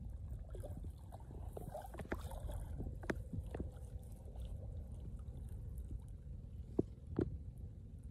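Water splashing and sloshing as a cast net is handled and thrown into shallow muddy water, over a steady low rumble. There is a cluster of splashes in the first few seconds and two sharp knocks near the end.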